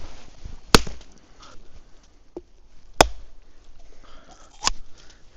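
A whole coconut being smashed against a rock: three sharp, hard cracks about two seconds apart as the shell is struck to split it open.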